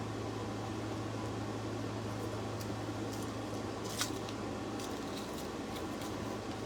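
Tape being peeled off a painted wooden board: scattered soft crackles and ticks, with a sharper tearing crackle about four seconds in, over a steady low hum.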